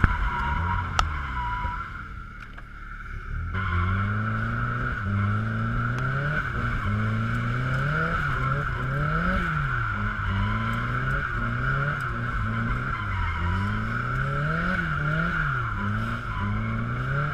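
Car engine, likely an SR20, revving up and down over and over during drifting, its pitch climbing and dropping every second or two, with a steady high-pitched tone underneath. The engine briefly drops away about two seconds in.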